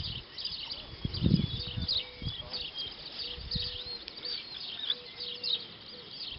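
Small birds chirping and twittering throughout, with a few dull low thumps about a second in.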